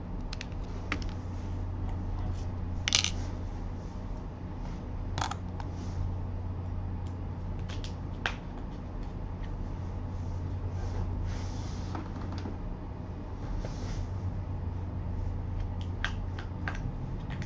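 Steady low electrical hum with a few scattered sharp clicks, the loudest about three seconds in.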